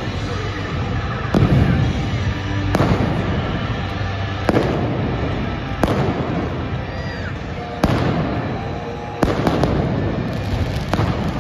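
Arena pyrotechnics firing: a series of about seven sharp bangs, one every one and a half to two seconds, over loud arena music.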